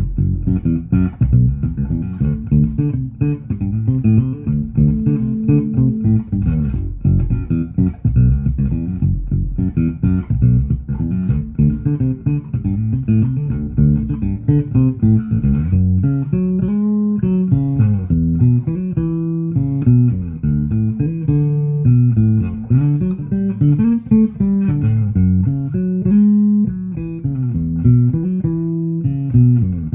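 Fender Player Series Precision Bass fitted with a Fender HiMass bridge, played as a continuous bass line of plucked notes. The notes ring longer at first and come shorter and more separate from about halfway through.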